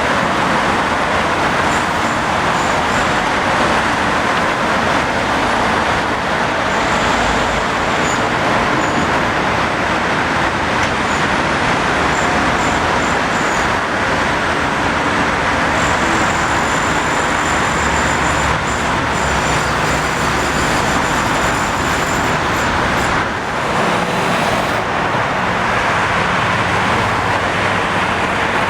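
Steady, fairly loud rumble of motor traffic and vehicle engines, an even noise with no single machine standing out.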